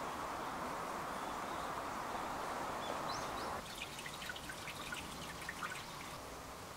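Suikinkutsu: water trickles steadily until it stops about halfway through, then scattered high drips sound one after another inside the buried jar.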